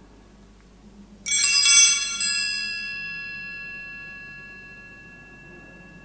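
Sanctus bell, small altar bells, shaken sharply about a second in, with a second jangle just after, then left to ring out in several clear high tones that fade slowly.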